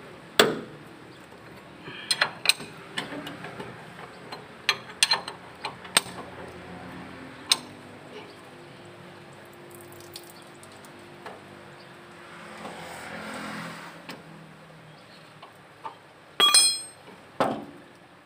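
A 22 mm steel combination wrench clinking against the lower diesel fuel filter housing of a truck as the filter is loosened and unscrewed: a string of sharp metallic clicks and clinks, with a soft rushing sound about halfway through. Near the end come two louder metal clanks, the first with a brief ring.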